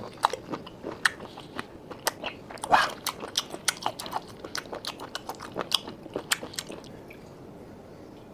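Close-miked chewing and biting of steamed snail meat: a quick run of wet smacks and crunchy clicks that thins out about seven seconds in.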